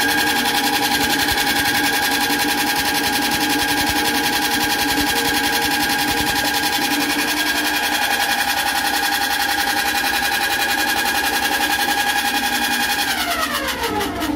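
Electric-motor-driven soybean dehulling machine running at speed with a steady whine. About a second before the end its whine falls in pitch as the machine runs down.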